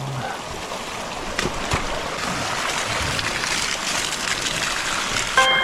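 Hot spring water running steadily out of a hose that has just been got flowing again.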